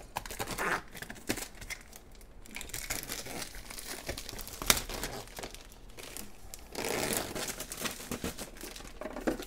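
Clear plastic protective film being peeled off a hard plastic toy playset, crinkling and tearing in irregular spells. There is one sharp click about halfway through and a louder run of crinkling near the end.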